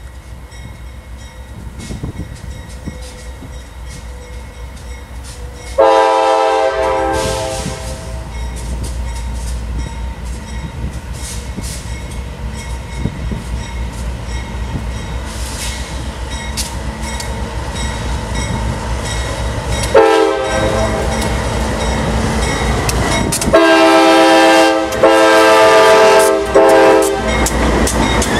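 Diesel freight locomotives running slowly past with a low engine rumble that grows louder as they draw near. The multi-note locomotive horn sounds four times: a blast about six seconds in, a short toot later on, then two long blasts near the end.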